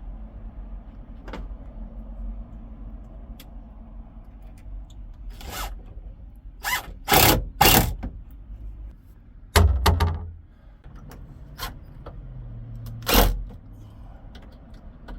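Sharp knocks and clunks of a wooden cabinet door being shifted and fixed in place, with two short low whirs of a power drill driving screws, the first about ten seconds in.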